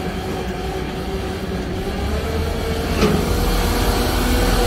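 Heavy machinery running with a steady low rumble and a faint tone that climbs slightly, with a single knock about three seconds in.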